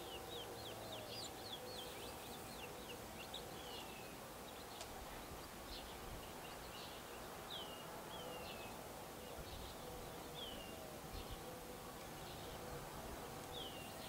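Gambel's quail chicks peeping: a quick run of high, down-slurred peeps in the first couple of seconds, then single peeps every second or two.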